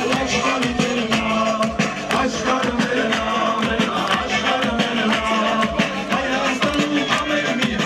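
Upbeat dance music with a fast, steady drum beat and a melody over it.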